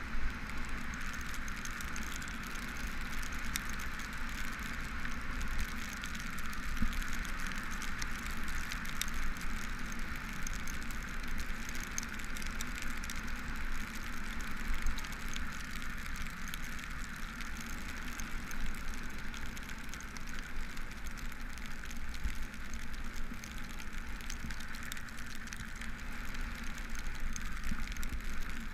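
Steady hiss of bicycle tyres rolling on a rain-soaked road, with wind rumbling on the camera and small ticks of raindrops hitting the housing. A sharp click right at the start.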